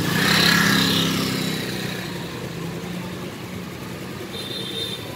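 A motor scooter rides close past and pulls away, its engine loudest in the first second and then fading into the street traffic. A brief high-pitched tone sounds near the end.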